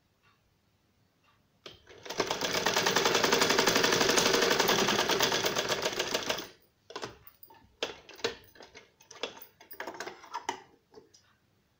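Sewing machine stitching at a fast, even rhythm for about four and a half seconds, starting about two seconds in. It then stops, followed by a few seconds of irregular clicks and knocks from handling the machine and fabric.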